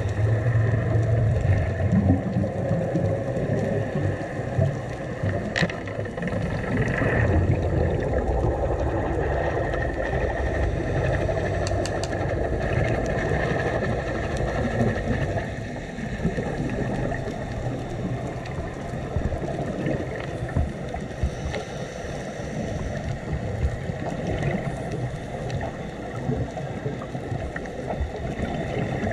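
Underwater sound on a scuba dive: a steady low rumble and watery hiss, with a few scattered clicks.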